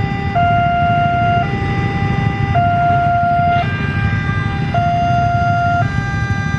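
Automatic level-crossing warning siren sounding a two-tone alarm, switching between a lower and a higher note about once a second, over a steady low rumble.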